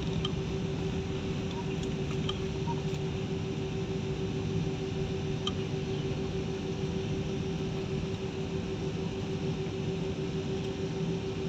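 Steady cabin noise inside an Airbus A320-family jet airliner on the ground, with a constant low hum over an even rumble.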